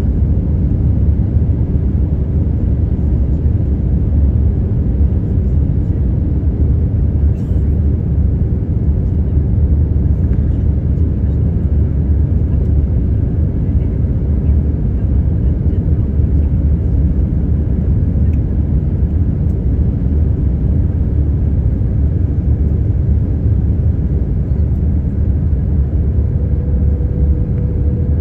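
Jet airliner cabin noise at a window seat: a steady low rumble of engines and airflow. A faint steady hum joins it near the end.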